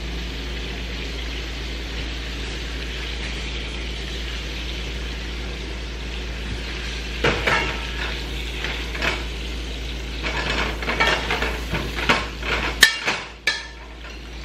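Steady hiss, then a spoon clinking and scraping against a bowl, busier toward the end, as sauce ingredients are stirred together.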